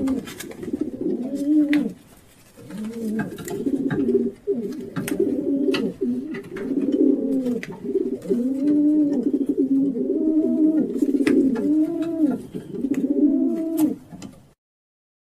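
Several rock pigeons cooing over and over in low, rounded, overlapping coos, with sharp clicks scattered among them. The sound cuts off abruptly near the end.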